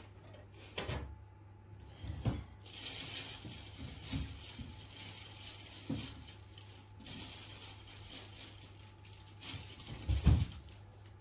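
Kitchen handling sounds: a handful of knocks and thuds as dishes and ingredients are picked up and set down, the loudest near the end, with two stretches of hiss or rustle in between.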